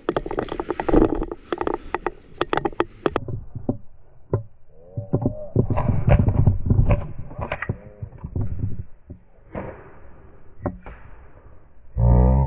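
Airsoft guns firing: a quick, irregular string of sharp snapping shots in the first three seconds, then a few single shots over low rustling and handling noise, with a short loud thump near the end.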